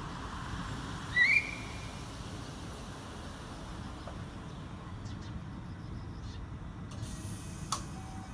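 Railway platform ambience: a steady low rumble, broken about a second in by one short, high, rising chirp, and a faint click near the end.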